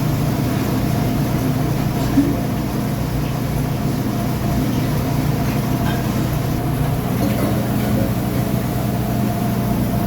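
Steady low hum of a motor-driven workshop machine running, with one short knock about two seconds in.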